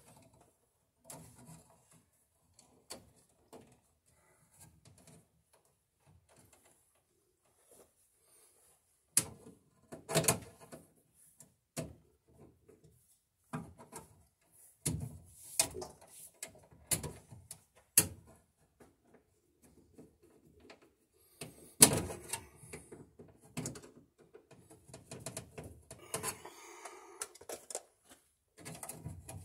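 Irregular clicks, taps and knocks of hand tools and stiff 10-gauge copper wire against a metal breaker panel as the wire is bent and pushed into place. The sharpest knock comes a little past the middle, and a short scraping stretch comes near the end.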